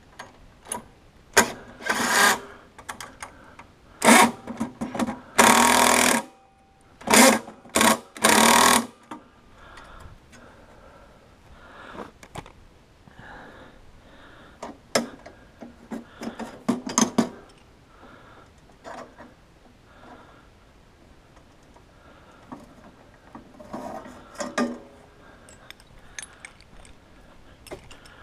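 Cordless drill running in several short bursts, about two to nine seconds in, driving fasteners into a cart frame, followed by lighter clicks and knocks of parts being handled.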